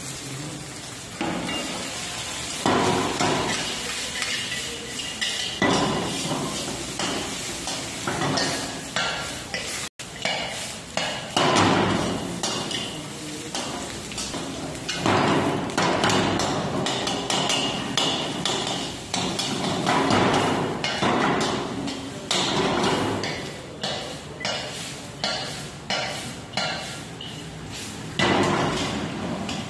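Metal spatula clattering and scraping against a wok in quick, irregular strokes while vegetables are stir-fried, over a steady frying sizzle.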